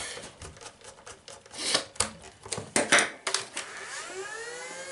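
Plastic clicks and knocks as the battery compartment of a Nerf Star Wars Jyn Erso blaster is screwed shut and the blaster handled. About four seconds in, the blaster's electronic sound unit starts a rising power-up whine.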